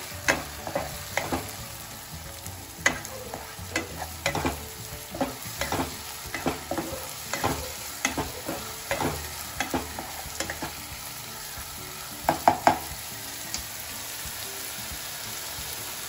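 A plastic spatula scraping and knocking against a non-stick kadai while stirring tomato paste into masala frying in mustard oil, over a steady sizzle. The strokes come irregularly, with a burst of louder knocks about twelve seconds in, and the stirring stops near the end, leaving only the sizzle.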